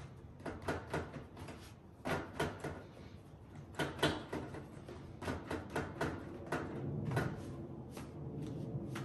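Fingertips pressing and patting pizza dough out on a wooden board: a string of irregular soft taps and thumps. A low steady rumble joins in after about six seconds.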